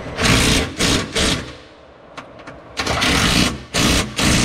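Cordless impact wrench running in a series of short bursts, each a second or less with the longest about three seconds in, as it drives home the bolts of a rear strut-tower brace.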